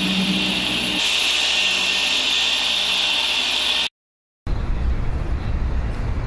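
Car engine running steadily just after starting, with a strong steady high hiss over it. It cuts off abruptly about four seconds in. After half a second of silence, a rough low rumbling noise begins.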